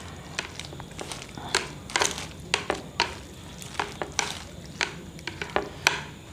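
Chopsticks clicking and scraping against a plate as a heap of chicken noodles is tossed and mixed: a run of irregular light taps.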